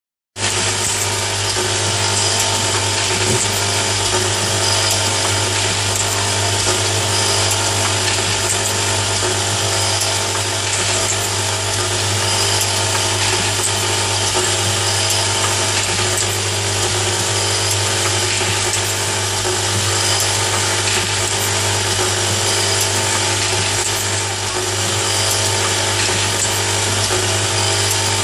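Automatic nail polish filling and capping machine running: a steady motor hum under a dense mechanical whir, with faint light clicks from the moving parts.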